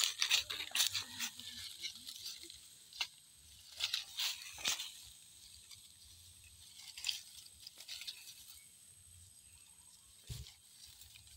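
Leaves rustling and stems tearing as a hand grabs and picks shoots of native bitter gourd (ampalaya) vines from the undergrowth, in irregular bursts that are busiest in the first few seconds. A single dull thump about ten seconds in.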